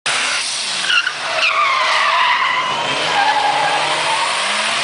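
Turbocharged Volkswagen Voyage: a loud hiss with a high whistle that falls in pitch between about one and a half and three and a half seconds in.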